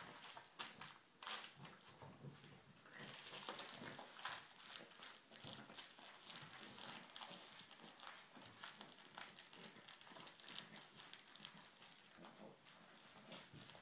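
Faint rustling, crinkling and scuffling as a French bulldog puppy plays on a blanket, pawing and tugging at a plush toy.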